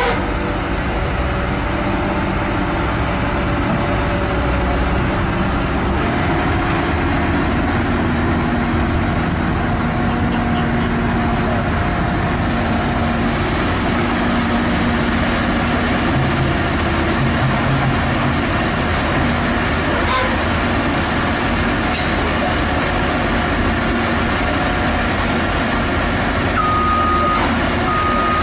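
A heavy vehicle's engine running steadily, with a reversing alarm starting to beep about once a second near the end.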